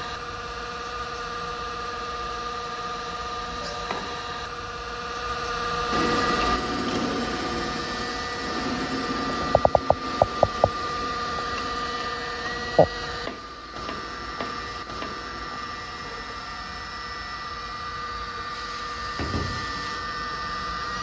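Hydraulic pump of a 1/25-scale R9800 RC hydraulic excavator whining steadily, getting louder about six seconds in. Around the middle there is a quick run of about six sharp clicks, then a single knock a few seconds later.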